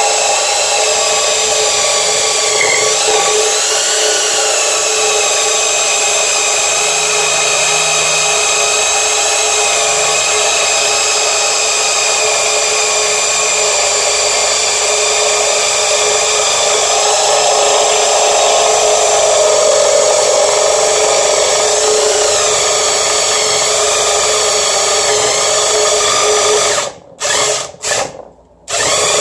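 Electric power saw cutting through the aluminium bellhousing of a Mazda Miata transmission. It makes a steady high whine whose pitch dips briefly as the blade loads up, and near the end it stops and restarts twice.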